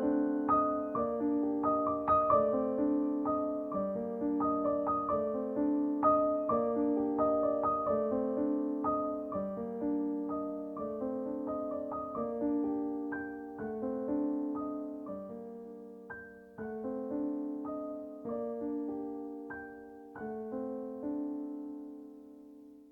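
Background music: a slow solo piano piece with notes struck at an even pace, fading out near the end.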